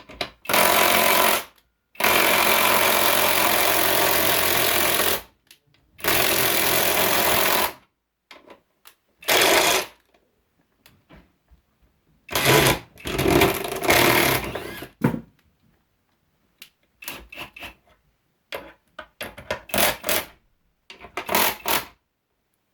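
Bauer 3/8-inch impact wrench hammering in bursts as it tries to back out lag bolts. Three long runs give way to shorter bursts and brief blips near the end; it is struggling, the bolts barely coming out.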